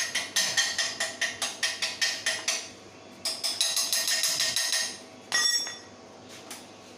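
Hammer striking steel in a fast run of blows, about five a second, each ringing. After a short pause comes a quicker run of strikes, then one last ringing blow.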